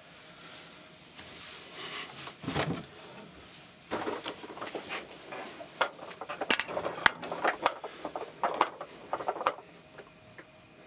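Hands handling tools and materials close to the microphone: rustling, a knock about two and a half seconds in, then a quick irregular run of sharp clicks. A pair of curved scissors is being brought to the fly.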